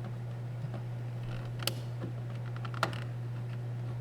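A few small, sharp plastic clicks, the two loudest about a second and a half and three seconds in, as a retaining clip is pushed off the interior door handle's linkage rod inside a car door. A steady low hum runs underneath.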